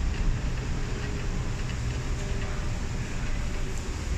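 Cabin noise inside an MTR East Rail line R-Train electric multiple unit slowing as it arrives at a platform: a steady low rumble from the running gear, with a faint whine that slowly drops in pitch.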